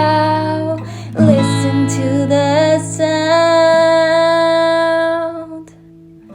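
A slow ballad sung by a woman over acoustic guitar, ending on one long held note that fades out about five and a half seconds in.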